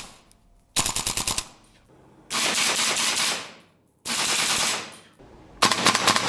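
PTS Mega Arms MKM AR15 gas blowback airsoft rifle firing four short full-auto bursts, its blowback bolt cycling with each shot. The first and last bursts break into rapid separate shots, while the middle two run together into a continuous rush.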